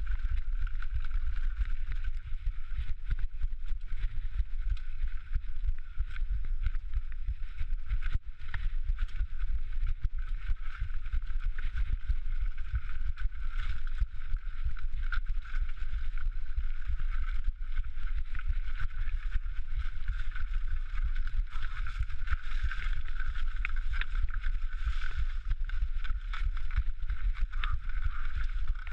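Mountain bike riding down a rocky technical trail: a continuous rumble with dense, irregular knocks and rattles from the tyres and bike over rock.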